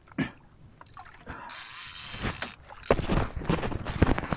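Fishing reel being cranked against a hooked fish on a bent slow-jigging rod: clicking and knocking of the reel's mechanism, thickest in the last second or so, with a rushing noise a little before the middle.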